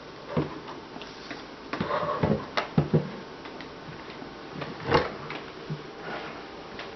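The driver unit of a KEF 105/3 loudspeaker being worked loose and lifted off its cabinet, making scattered knocks, scrapes and thumps. The sharpest knocks come about three and five seconds in.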